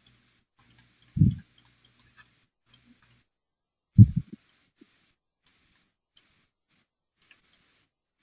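Stylus writing on a pen tablet: faint scratchy strokes and small ticks, with two dull thumps, the first about a second in and the second, louder one about four seconds in.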